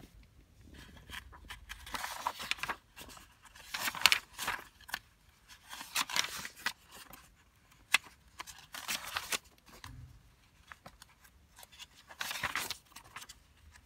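Pages of an old paper desk diary being turned one after another: about five short papery rustles a couple of seconds apart, with small clicks and taps of handling between them.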